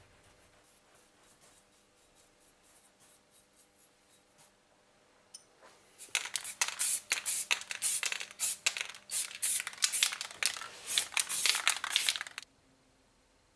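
An aerosol spray-paint can hissing in many short bursts, several a second, for about six seconds, then stopping abruptly. Before it, faint scratchy strokes of a paintbrush on metal.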